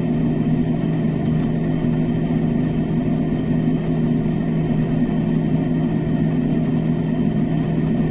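Fendt 818 Vario tractor's six-cylinder diesel engine running steadily under load while pulling a plough, heard from inside the cab as a constant drone.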